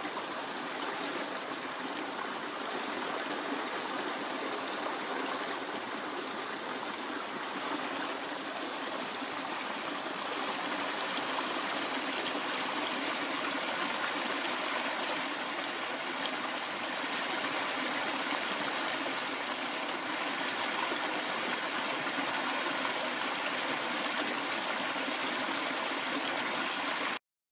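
A small woodland creek running over stones and a shallow riffle: a steady babbling rush of water, a little louder partway through. It stops abruptly near the end.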